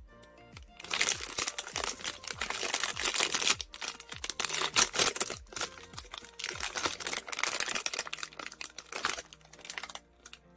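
Foil blind-box pouch crinkling and crumpling in the hands in irregular rustling bursts, stopping suddenly about ten seconds in.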